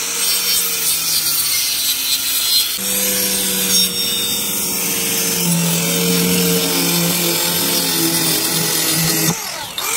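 Power saw cutting wood, a steady grinding noise over the motor's hum, which changes pitch a few times as the cut loads it.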